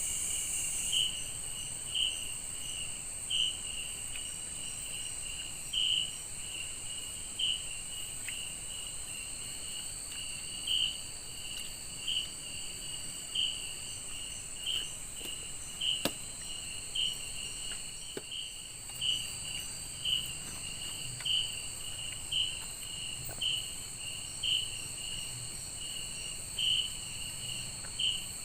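Night insect chorus in forest: a steady high-pitched drone, with a louder chirp from another insect repeating about once a second. A single sharp click about halfway through.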